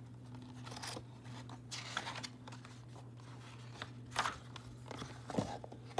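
Pages of a picture book being turned by hand: soft paper rustles and a few light taps, the clearest about four seconds in and again near the end.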